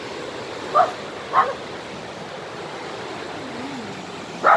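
A dog barking three times, two quick barks about a second in and one more near the end, over the steady rush of a fast-flowing river.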